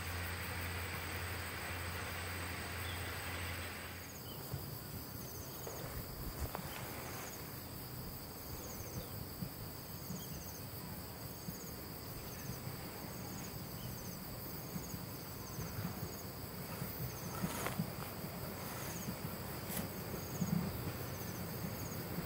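For about the first four seconds, a steady low hum from the diesel locomotive. Then insects chirp in short pulses about once a second, while a low rumble from a track maintenance vehicle approaching on the rails grows toward the end.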